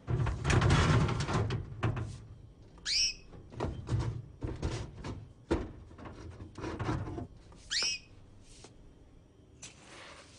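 Objects being handled, with rustling loudest at the start and scattered knocks, and a small bird giving two short chirps, about three seconds in and again near eight seconds.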